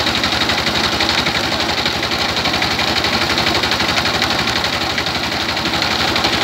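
A belt-driven rice huller milling paddy, run by the single-cylinder stationary engine that drives it, both running steadily under load with a rapid, even beat from the engine.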